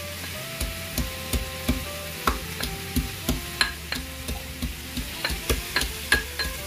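Wooden pestle pounding garlic in a small steel cup, a steady run of knocks about three times a second, starting about half a second in.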